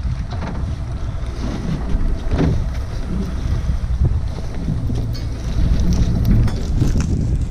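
Wind buffeting the microphone in a steady low rumble, with scattered knocks and clunks of gear against the aluminum jon boat's hull and deck.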